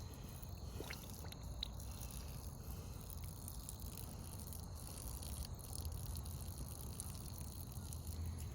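Faint water dripping and trickling from a garden hose fitting just after the line pressure has been released, with a few light clicks in the first couple of seconds.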